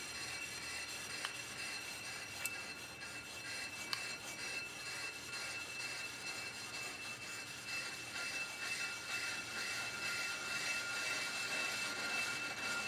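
Pro-Cut on-car brake lathe turning a 1998 Jeep Cherokee's brake rotor, with a steady high ring and a repeating scraping pulse as the cutter tips catch the rotor, growing louder in the second half. The patterned, uneven sound is the sign of rotor runout: the rotor is not flat. A few sharp clicks come in the first four seconds.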